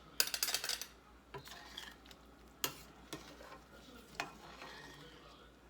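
A utensil scraping and clinking against a pot of boiling pork broth as the fat is skimmed off the top. A quick rattling scrape comes just after the start, followed by a few separate sharp clinks.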